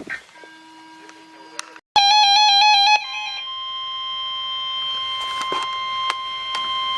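A weather radio's alert. About two seconds in, a loud warbling electronic alarm sounds for about a second. It gives way to the steady NOAA Weather Radio 1050 Hz warning alert tone, which carries on, with a few faint clicks over it. This is the alarm that comes before a new warning message is broadcast.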